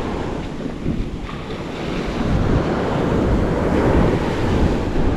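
Small surf waves washing up over the sand, with gusty wind buffeting the microphone.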